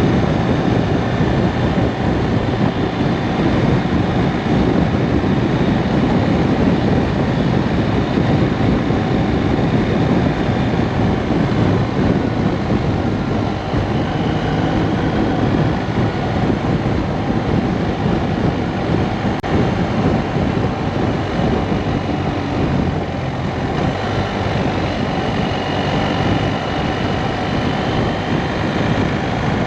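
Steady wind noise buffeting a jacket-mounted camera microphone while riding a BMW R1250RS motorcycle, with the bike's boxer twin engine running beneath it.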